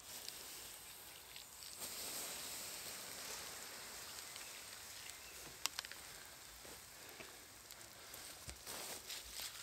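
Water poured onto the hot embers of a small campfire, hissing and sizzling as the fire is put out. The hiss swells about two seconds in and slowly dies away, with one sharp click about halfway through.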